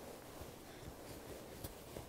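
Fingers rubbing and brushing the faux-sherpa fleece of a coat, a soft, faint rustle, with one light click about a second and a half in.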